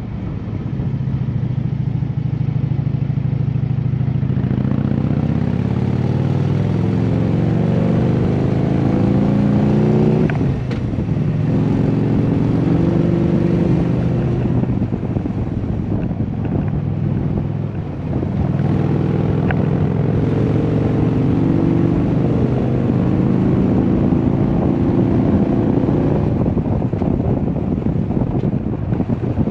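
Harley-Davidson V-twin engine under way and accelerating, its pitch climbing in long pulls and dropping back at gear changes about ten and eighteen seconds in.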